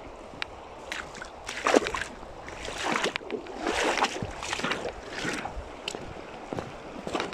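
Water sloshing and splashing in a series of irregular surges, with a few sharp clicks in the first second or so.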